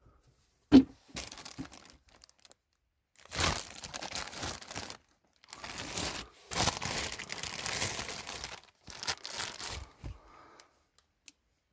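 Old books and papers being handled: crinkling and rustling in several bursts, after a sharp knock about a second in.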